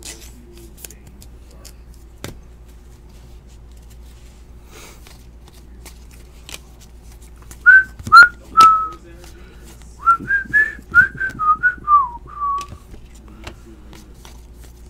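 A person whistling: three short notes a little past halfway, then a quick run of rising and falling notes. Light clicks of trading cards being flipped and handled come throughout.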